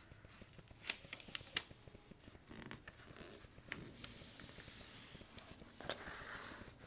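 A sheet of paper being folded and creased by hand: a dry rustle with several sharp crackles.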